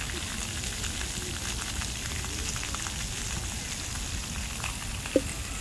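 Steady hiss of splash-pad fountain jets spraying water, with a brief sharp sound near the end.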